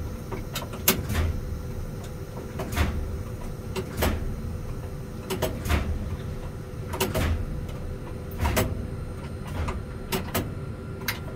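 Irregular clicks and clunks, about one every second or so, from the controls of an EF63 electric locomotive's cab as they are worked, over the steady hum of the locomotive's equipment.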